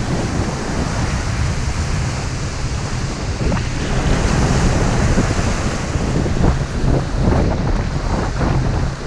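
Choppy ocean surf breaking and washing up the shore, with wind rumbling on the microphone, gustier in the second half.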